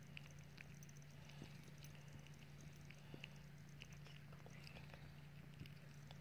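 Faint, irregular small clicks of an exotic shorthair kitten biting and chewing a slice of soft white bread, over a steady low hum.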